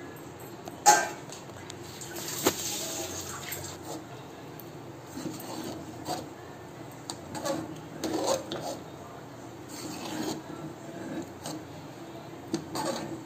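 Metal ladle stirring a thin, liquid payasam in a pressure cooker pot: sloshing and scraping, with sharp knocks of the ladle against the pot's side, the loudest about a second in.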